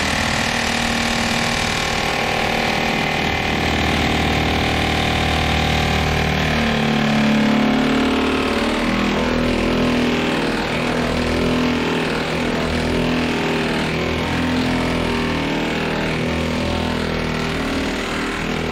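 Cordless impact wrench hammering without a break on a very tight, rusted cab-mount bolt of a 1957 Autocar truck; its tone shifts lower about seven seconds in.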